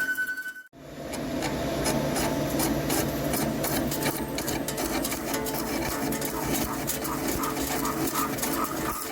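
Hankook PROTEC-9NC heavy CNC lathe turning a forged pinion shaft: steady machine hum with a dense, rapid crackle of small clicks. It starts about a second in, after a brief drop-out.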